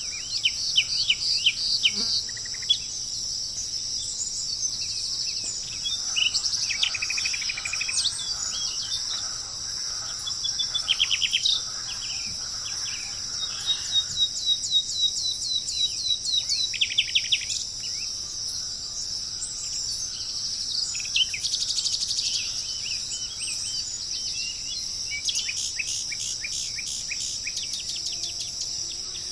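Tropical forest ambience: a steady high-pitched insect chorus, with several birds calling over it in quick series of chirps and short trills that come and go throughout.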